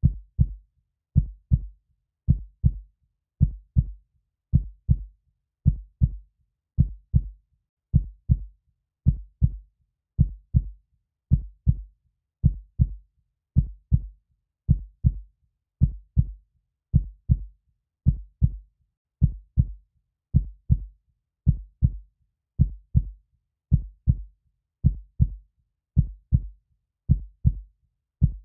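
A heartbeat: a slow, steady lub-dub rhythm of low paired thumps, the first of each pair louder, a little under one pair a second, with silence between the beats.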